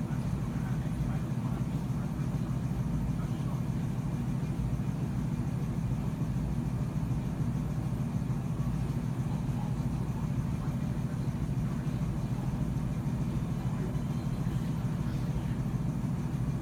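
Steady low rumble of background room noise, unchanging throughout.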